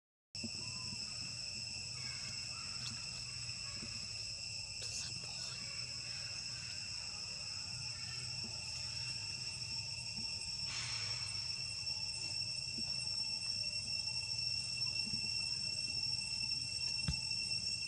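Steady high-pitched insect chorus, a continuous drone held at several pitches at once, with a brief faint rustle about eleven seconds in.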